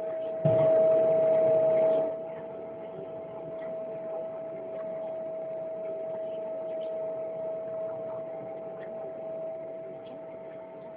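Airliner cabin noise inside a Boeing 777-200ER: a steady hum with a constant whine. It is louder from about half a second in until about two seconds in, then settles.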